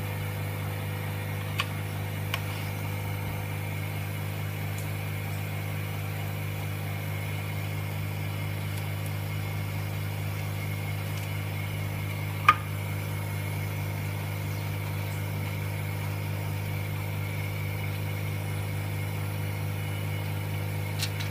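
Steady mechanical hum of the laminating machine's vacuum pump running, with a single sharp click about twelve seconds in.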